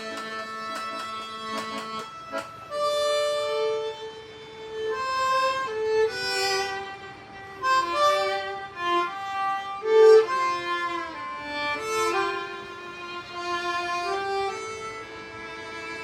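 Live folk duo music: a violin holds a long note for about two seconds, then plays a slow melody of sustained notes.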